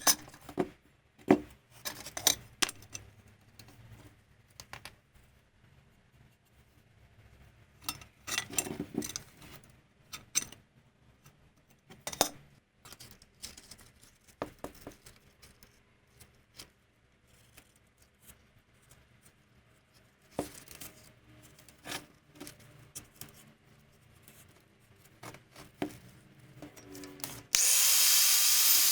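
Metal parts and hand tools being handled at a workbench: scattered clinks, taps and knocks. Near the end a loud, steady hissing noise starts suddenly.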